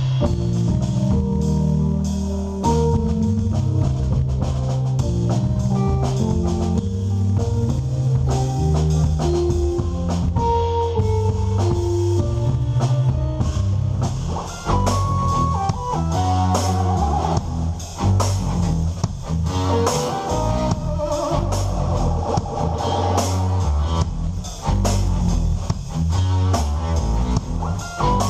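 Live instrumental band playing electric guitar, keyboards and drum kit together, over a moving low bass line and a steady drum beat.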